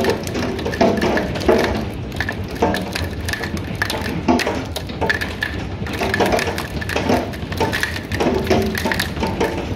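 Heavy hail pelting a wooden deck: a dense, continuous clatter of hard impacts, heard from indoors through window glass.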